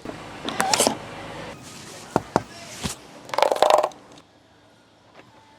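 A series of mechanical handling sounds from a 2025 Mercedes-Benz GLC 300L: two scraping, rustling bursts with two sharp clicks between them. About four seconds in it goes much quieter, leaving a faint steady tone.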